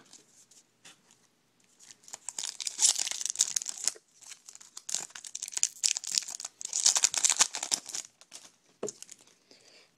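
Foil wrapper of a Topps Chrome trading-card pack being torn open and crinkled by hand, in two long spells of crackling with a short pause between them, then a few scattered rustles.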